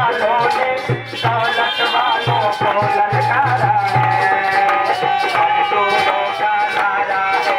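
Folk music played live, with a dholak barrel drum beaten by hand in a repeating rhythm under a wavering, held melody, and with rattling jingles among the beats.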